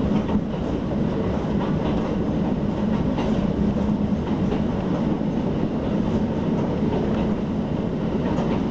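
Hakone Tozan Railway electric train heard from inside the passenger car as it climbs the steep mountain line: a steady running rumble of wheels on rail with a constant low hum and a few faint clicks.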